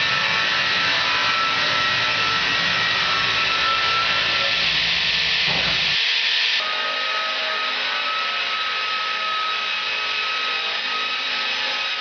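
Sawmill running and cutting through a log: a steady high whine from the saw with a hiss of cutting wood. The sound changes abruptly about six seconds in, losing its low rumble, as an electric-motor sawmill with a horizontal circular blade takes over the cut.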